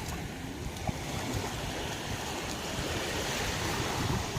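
Gentle sea waves washing on a beach: a steady wash of water noise.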